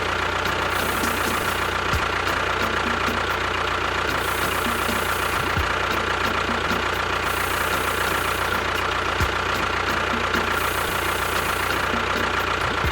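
A motor running steadily at an even speed, with a constant whine over a low hum.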